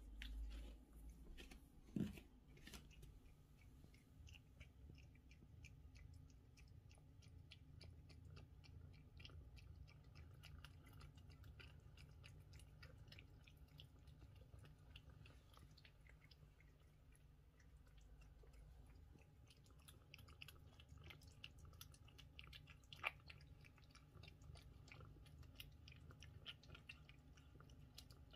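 British Shorthair cat chewing wet food from a saucer: faint, quick, continuous chewing clicks. A sharp knock about two seconds in and a single sharp click later on stand out as the loudest moments.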